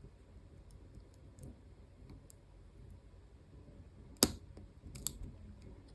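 Faint scattered ticks of a lock pick working the spring-loaded sliders of an EVVA ICS cylinder, with a sharper click a little after four seconds and another about a second later.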